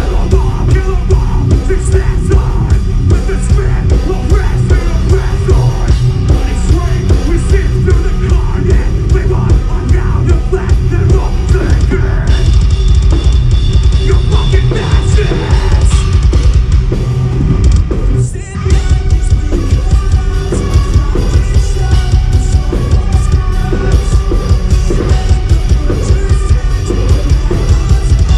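Metalcore band playing live at full volume: drums, heavily distorted guitars and bass, with vocals over them. The music cuts out for a split second about 18 seconds in and comes straight back.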